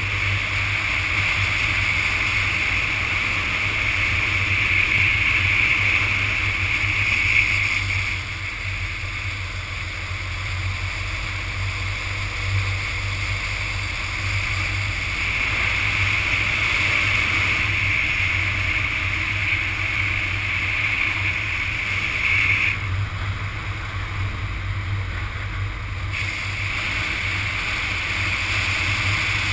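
Motorcycle riding at road speed: a steady low engine hum under rushing wind noise. The higher hiss drops back about 8 seconds in, returns, and drops away again for a few seconds later on.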